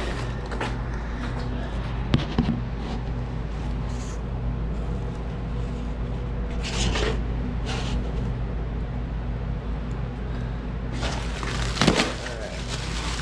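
A cardboard box and plastic shrink wrap being handled: scattered rustles and knocks, with a sharper thump about twelve seconds in, over a steady low hum.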